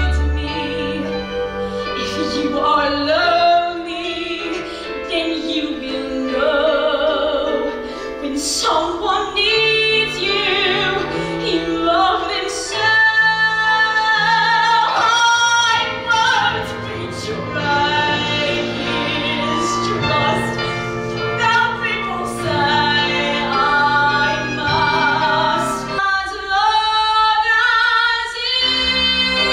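A girl singing a musical-theatre solo on stage, holding notes with vibrato over instrumental accompaniment.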